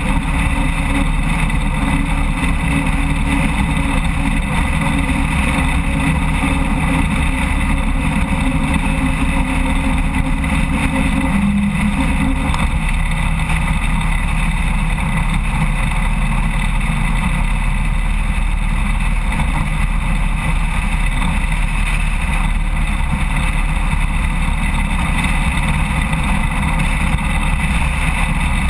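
Harley-Davidson Road King motorcycle with its V-twin running at a steady cruising speed, with wind and road noise. For about the first twelve seconds the tyres run on a steel-grate bridge deck, adding a steady hum that stops when the bike moves onto solid pavement.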